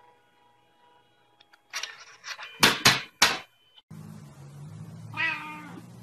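Three loud, sharp noisy bursts in quick succession about two and a half to three and a half seconds in, then a low steady hum. Over the hum a cat gives one short meow about five seconds in.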